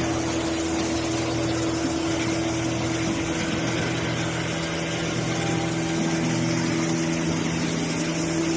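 Two-head 5-axis CNC wood router running, a steady machine hum with a steady pitched tone over a haze of noise; it grows slightly louder about six seconds in.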